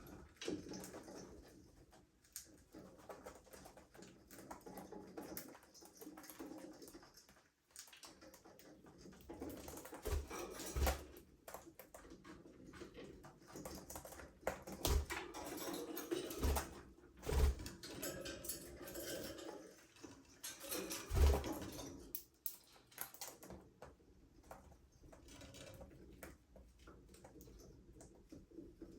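Budgerigars in a cage or aviary, chattering softly, with scattered taps and a few short knocks as they move about, the loudest thumps coming in the middle stretch.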